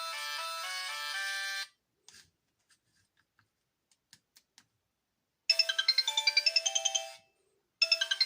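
Sony Ericsson K508i mobile phone playing its built-in polyphonic tunes through its small speaker. One melody stops just under two seconds in, and a few faint clicks follow. Later a new, fast and bright tune of rapid staccato notes plays for about a second and a half, pauses briefly and starts over near the end.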